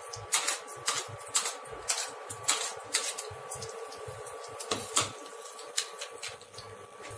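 Panch phoron (Bengali five-spice seeds) crackling in hot mustard oil in a stainless-steel kadai: irregular pops and spits, several a second, as the seeds fry, over a faint steady hum.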